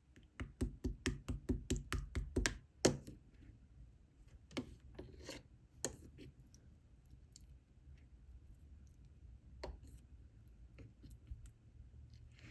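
A spoon stirring and scraping in a cup while mixing green tea latte. It starts with a quick run of clicks, about five a second, for the first two and a half seconds, then a louder knock, then scattered clicks and scrapes.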